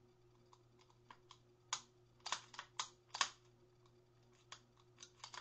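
A series of light metallic clicks from a cleared Magnum Research 1911 G10 10mm pistol as its slide, hammer and trigger are worked by hand, re-creating a short-stroked trigger pull. A few faint clicks come first, then a cluster of sharper ones around the middle, then softer ones near the end.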